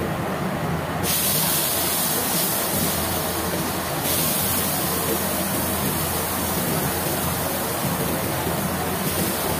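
Oil sizzling in a hot wok as a ladle stirs it, over the steady splash of a tap running into a stock pot; a brighter hiss comes in about a second in and eases off about four seconds in.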